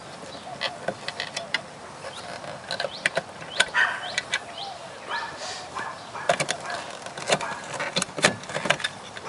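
Irregular clicks, snaps and knocks of hands and tools working the plastic trim of a car's door panel, some of them in quick clusters.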